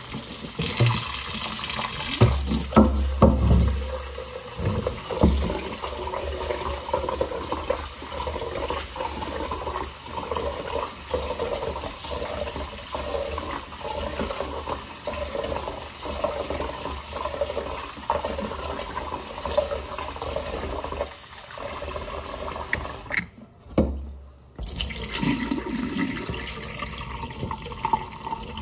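Tap water running into an aluminium pot in a stainless steel sink as glutinous rice is washed in it by hand, the water sloshing in a regular rhythm. The water stops briefly near the end, then the cloudy rinse water is poured from the pot into the sink.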